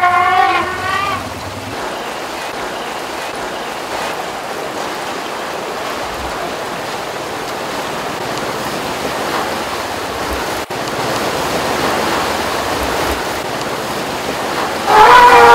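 Steady rushing and splashing water as a herd of Asian elephants wades through a shallow river. A pitched voice-like call is heard briefly in the first second and again at the very end.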